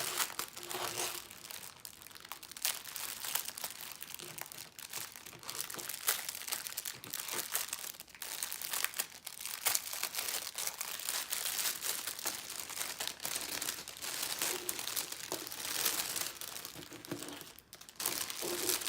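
Small plastic bags of diamond painting drills being handled and opened: continuous crinkling plastic with sharp crackles and clicks.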